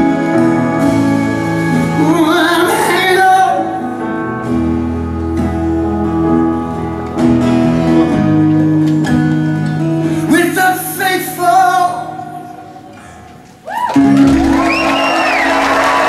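A live song ends: a man sings sustained closing lines over acoustic guitar and violin. The music fades away, and about two seconds before the end the audience breaks into loud applause.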